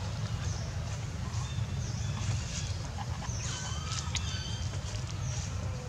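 Animal calls: short high chirps repeating about once or twice a second, and one longer steady-pitched call about three and a half seconds in, over a steady low rumble.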